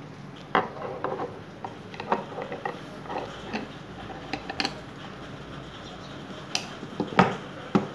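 Steel ratchet adaptor head for an interchangeable-head torque wrench clicking and clunking metal on metal as it is handled and slotted into the wrench's end fitting. Irregular clicks through the first half, then a few louder knocks near the end.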